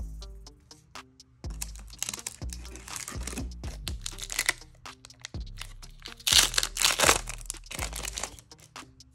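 A trading-card booster-pack wrapper crinkling and tearing as it is opened, in two stretches, the second louder, over background music with a steady beat.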